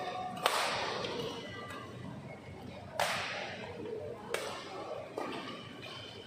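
Badminton racket strikes on a shuttlecock during a rally in a large hall. There are three sharp cracks, about half a second in, three seconds in and a little after four seconds, and a lighter hit about five seconds in.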